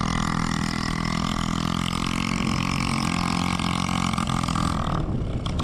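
Honda ATC125M single-cylinder four-stroke engine, swapped into a 1974 Honda XL100, idling steadily. Its even note fades out near the end, leaving a rougher noise.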